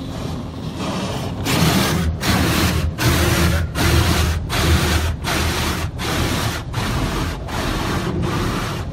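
Automatic car wash working over the car, heard from inside the cabin: water and wash material beat against the body in a steady pulse, about four beats every three seconds, starting about a second and a half in.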